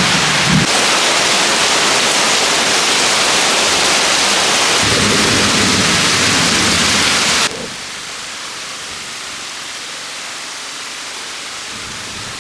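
Heavy rain pouring in a thunderstorm, a loud steady hiss with some low rumble. About halfway through it drops suddenly to a much quieter hiss.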